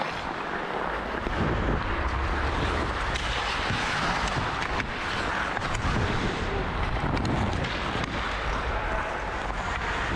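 Wind buffeting a helmet-mounted action camera's microphone as the player skates, a steady low rumble, with skate blades scraping the ice and a few sharp clicks.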